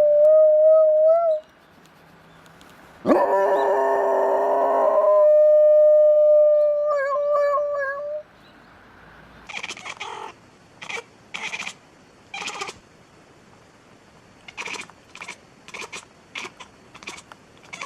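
A dog howling in long, steady held notes, with a louder, fuller stretch about three seconds in. From about halfway, the howl gives way to a string of short, noisy sounds.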